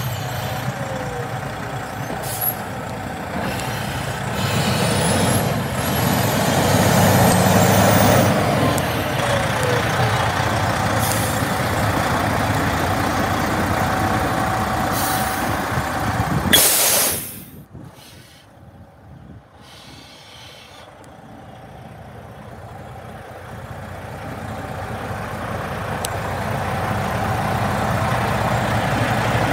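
Diesel engine of a 2007 Freightliner Columbia truck tractor running, with a short, sharp air-brake hiss about two-thirds of the way through. After the hiss the engine sound is much fainter, then slowly grows louder again.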